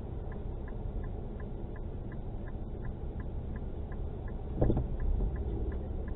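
Car cabin heard through a dashcam: a low steady rumble from the car waiting at an intersection, with a regular light ticking about two to three times a second like a turn-signal indicator clicking. A single dull thump comes about two-thirds of the way through.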